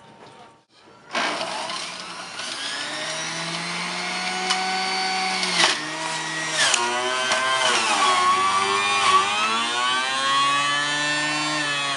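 Electric juicer motor starting about a second in and running with a high whine while pineapple is juiced. Its pitch sags and recovers several times as the fruit is pushed down the chute against the spinning cutter.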